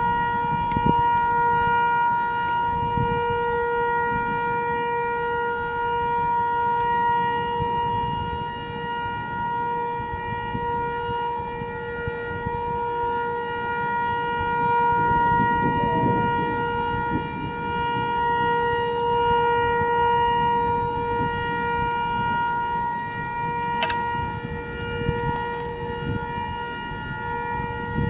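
Outdoor tornado warning siren sounding a steady tone that swells and fades every several seconds, with wind rumbling on the microphone.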